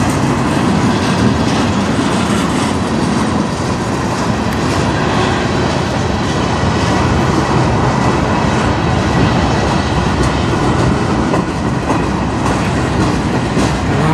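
Freight cars of a passing manifest train rolling by close at hand: steel wheels rumbling and clacking over the rails in a steady, loud noise.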